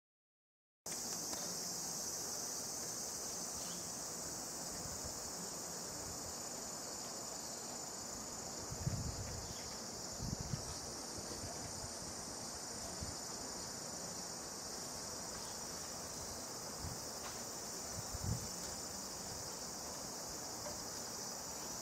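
Steady, high-pitched drone of insects singing, unbroken throughout. A few brief low thumps come partway through.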